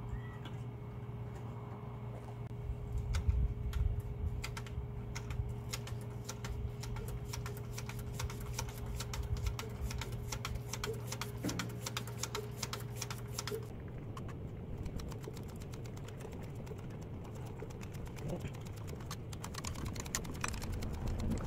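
Hand priming pump on a Daewoo forklift's diesel fuel system being worked to bleed out air: a rapid run of clicks for about ten seconds, then a few more near the end, with the fuel still not coming up to the engine. A steady low hum stops about 14 seconds in.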